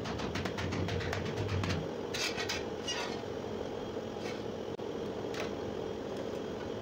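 A gloved hand tapping and rubbing ceramic floor tiles down into their mortar bed: a run of quick light taps in the first couple of seconds, then a few short scrapes, over a steady low hum.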